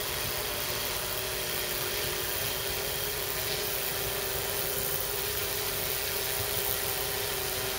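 Yuneec Typhoon Q500 4K quadcopter in flight: its four propellers and electric motors give a steady hum at a nearly constant pitch over a rushing hiss.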